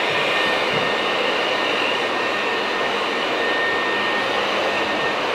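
Electric air blower running steadily, pumping air into an inflatable water-walking ball through its zippered opening, with a faint steady whine over the rush of air.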